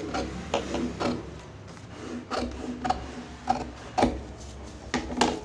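Large tailoring scissors cutting along a marked line through a folded sheet of pattern paper: a series of short snips, one or two a second.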